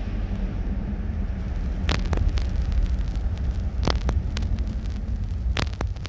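Low, steady rumbling drone with a hiss over it. A few sharp crackles and clicks come about two seconds in, near four seconds, and again near the end.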